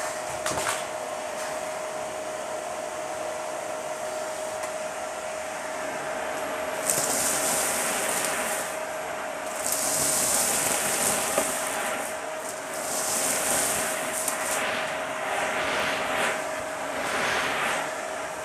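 Dyson vacuum cleaner running with a steady whine while its hose nozzle sucks up a pile of dry pasta and debris from a shag rug; the rush of air surges loudly in bursts, with a few sharp clicks, as pieces are pulled into the hose, about seven, ten and thirteen seconds in.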